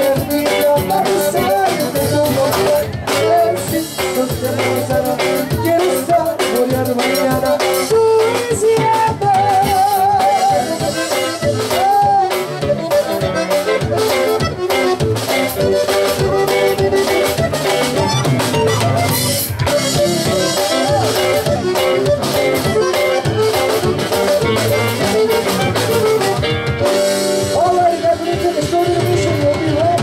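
Live conjunto band playing: button accordion carrying the melody over bajo sexto, electric bass and a steady drum kit beat.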